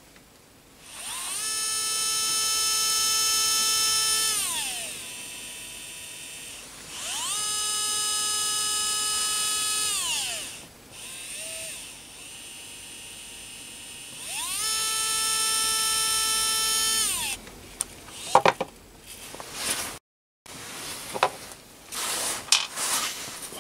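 ES121 motion-control electric screwdriver's small motor whining, spinning up, holding a steady high pitch for a few seconds and winding down again, three times, with quieter, slower running between. Near the end, clicks and knocks of the bit being handled and pulled out.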